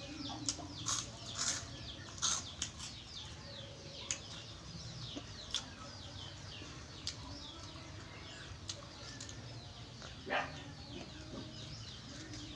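Crisp crunching bites and chewing of fried pork rinds, sharpest in the first few seconds with another crunch about ten seconds in. Chickens cluck and chirp in the background.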